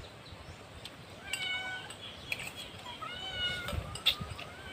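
A cat meowing twice, two short high-pitched meows about a second and a half apart, with a few light clicks of spoons on plates.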